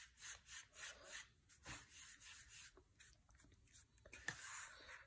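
Faint, rhythmic squelching squirts, about three a second, from a plastic squeeze bottle pressed over a bowl of liquid hair dye. This is followed by scattered clicks and a sharp click near the end.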